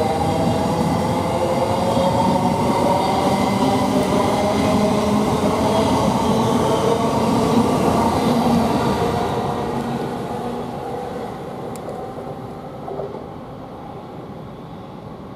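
Thameslink Class 700 electric multiple unit pulling away: the whine of its traction motors climbs in pitch as it gathers speed over rumbling wheels, then fades away over the last few seconds.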